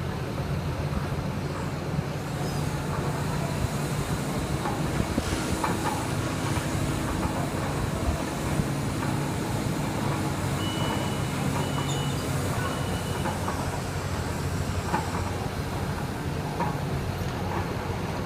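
Diesel engine of heavy construction machinery running steadily with a low rumble, with a few light knocks scattered through and a thin high tone for a few seconds in the middle.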